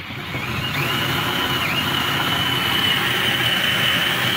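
Cordless drill turning a grain mill and crushing malted grain: a steady motor whine over the rattle and crunch of grain going through the mill. The whine climbs in within the first second and dips once briefly before holding steady.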